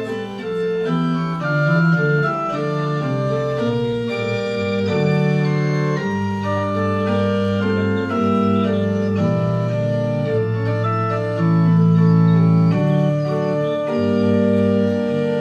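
Electronic organ playing a church postlude: held chords with a melody moving above them, at a steady level.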